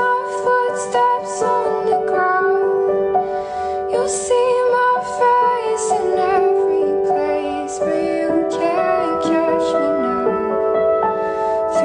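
Background music: a gentle, slow song with a high singing voice holding long notes over a soft keyboard accompaniment.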